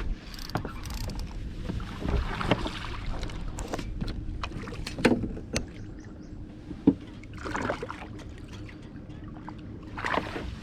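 Scattered knocks and clicks on a bass fishing boat, the loudest a sharp knock about seven seconds in, over a faint steady hum.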